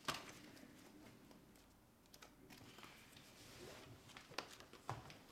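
Faint rustling of a blanket being pushed off and a magazine being handled, with a few soft clicks and taps near the end.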